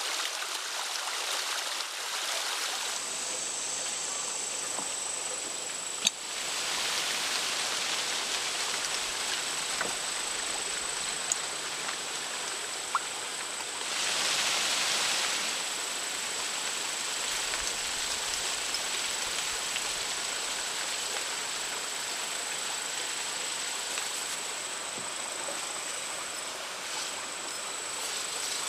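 Steady hissing noise that swells twice, with a few sharp clicks, and an insect trilling steadily at one high pitch from a few seconds in.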